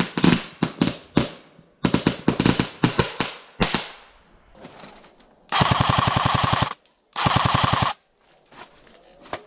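Airsoft guns firing: a quick run of single shots over the first four seconds, then two full-auto bursts of rapid, even cracks, about a second long and just under a second long, starting around five and a half and seven seconds in.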